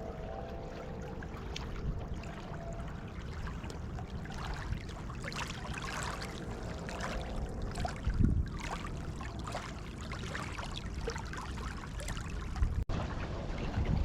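Water trickling and splashing over a steady low wind rumble on the microphone, with the splashes busiest about halfway through. The sound drops out briefly near the end.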